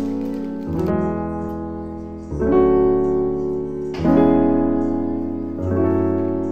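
Background music of slow piano chords, a new chord struck about every second and a half and fading away before the next.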